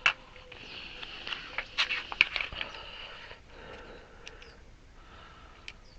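Clicks and crackles of a plastic parts package and small tire valve-stem parts being handled, a sharp click at the start and a cluster of them about two seconds in, over a faint steady high hiss.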